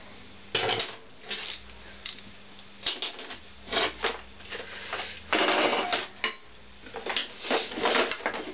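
Metal hand tools and engine parts clinking and scraping while a Honda CX500 engine's rear cover is taken apart: irregular clicks and short rattles, the longest of about a second coming a little past the middle.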